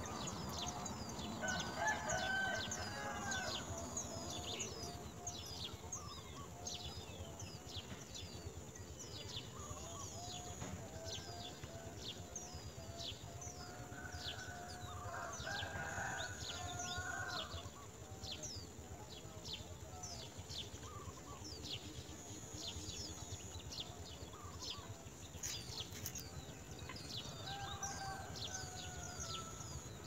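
Thin, high begging peeps from nestlings gaping in the nest, repeated about twice a second, while a rooster crows several times.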